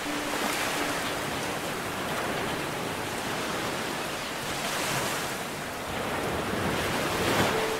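Ocean surf: a rushing wash of waves that swells and fades several times, with a few faint held musical notes near the start and end.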